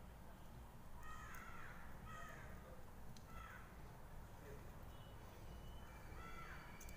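Crows cawing faintly: a few short, falling caws spaced about a second or more apart.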